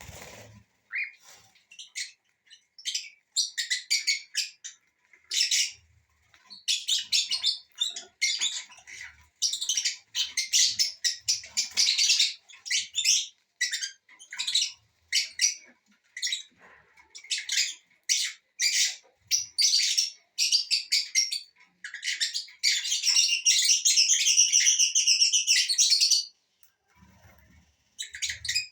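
Small pet parrots, lovebirds, cockatiels and ringnecks, chattering and squawking in rapid, high-pitched chirps. Past the middle the calls merge into one unbroken stretch of chatter lasting about four seconds, then pause briefly near the end.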